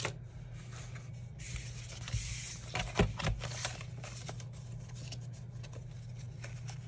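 Paper planner pages being handled and fitted onto the discs of a disc-bound mini planner: rustling, light scraping and small clicks, with one sharper knock about three seconds in.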